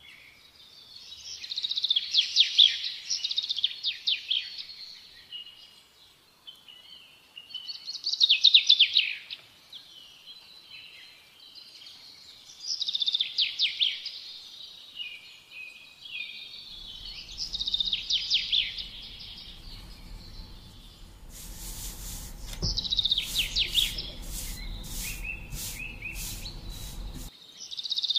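A songbird singing short, rapid trilling phrases about every five seconds. From about the middle a low hum joins in, with a quick run of sharp clicks near the end.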